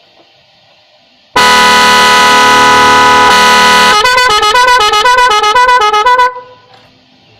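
An aftermarket 8-tone electronic horn on a Yamaha R15 v2 motorcycle, wired without a relay, sounding very loud. It starts about a second and a half in with a steady blaring tone for about two and a half seconds. It then switches to a fast warbling pattern of stepping notes for about two seconds and cuts off suddenly.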